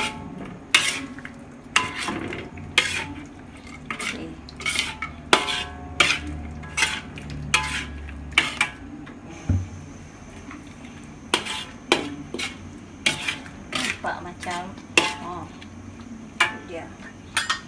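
Metal spatula stirring chicken in coconut-milk gravy in a metal wok, scraping and clacking against the pan in irregular strokes about once or twice a second.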